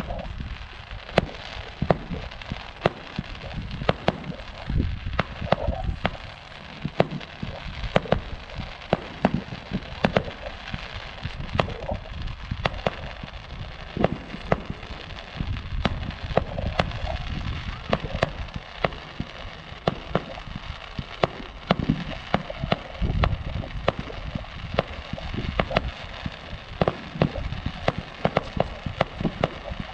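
Aerial fireworks going off in quick succession: a steady stream of sharp reports, one or two a second, over low booms.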